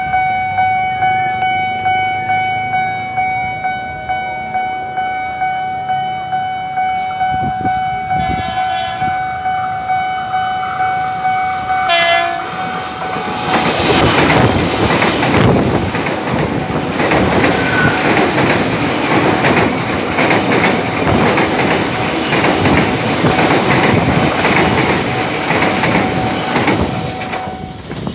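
Level-crossing warning bell ringing with rapid, evenly repeated strikes. About twelve seconds in, the approaching ex-Tokyu 8500-series electric commuter train sounds its horn, with a shorter blast a few seconds earlier. From about thirteen seconds the train runs past close by: a loud rumble with wheels clacking over rail joints, the bell still faint beneath it.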